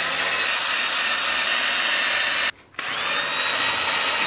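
Cordless drill spinning a wire wheel brush against the face of a classic Mini's cast-iron cylinder head, scouring the surface clean. It runs steadily, stops briefly about two and a half seconds in, then starts again.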